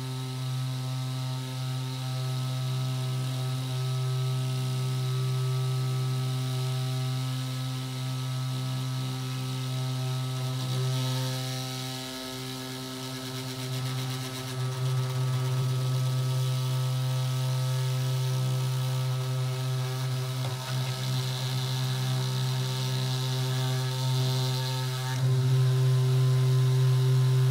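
Small 10,000 RPM DC motor running at full speed on a ceramic bearing, twisting wire into a Clapton coil: a steady hum. It grows louder about halfway through and again near the end.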